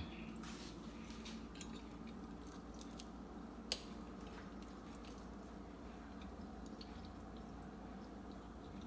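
Quiet room tone with a steady faint hum, and a few soft clicks of a knife and fork against a plate, one sharper clink a little under four seconds in.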